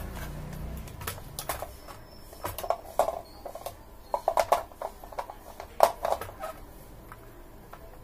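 Irregular clicks and light knocks of a circuit board and its cables being handled and turned over inside an opened plastic drum-pad case, in a few short clusters, the loudest about six seconds in.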